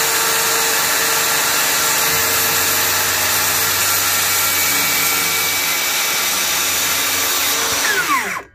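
DeWalt FlexVolt 60V brushless cordless circular saw running at full speed while crosscutting a 2x4 along a speed square: a steady, loud whine. Near the end the trigger is released and the blade winds down in pitch, stopping within about half a second.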